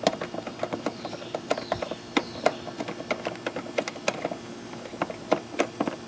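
Plastic knob on a Generac generator's air cleaner cover being unscrewed by hand, giving light irregular clicks several times a second.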